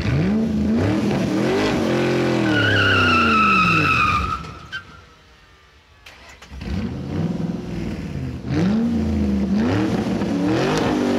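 Car engine revving up and down, with a tire squeal for about two seconds in the first half. After a short lull the engine revs again, its pitch rising and falling.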